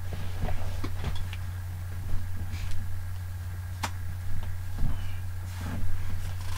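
Scattered light knocks, clicks and rustles of a person moving about and handling things, over a steady low electrical hum.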